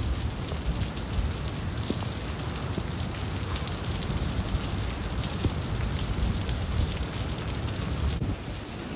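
Heavy rain falling and streaming off a roof edge: a steady hiss dotted with many small drop ticks, over a low rumble. It dips slightly near the end.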